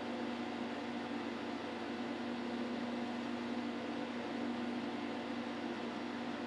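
Steady hum and hiss of a running fan, with a constant low drone.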